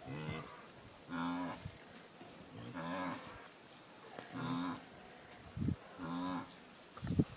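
African elephant calf calling: five short, low, pitched calls, one about every second and a half. Two brief thumps come near the end.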